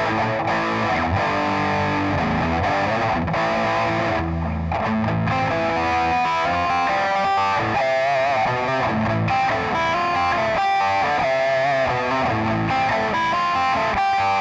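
Electric guitar played through a Digitech RP55 multi-effects pedal on an overdriven patch. It plays a lead line of single notes, with wavering, bent pitches about halfway through.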